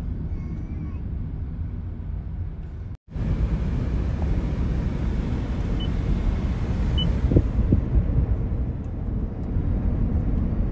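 Steady rumble of road and engine noise heard from inside a moving car. The sound cuts out for an instant about three seconds in, then carries on the same.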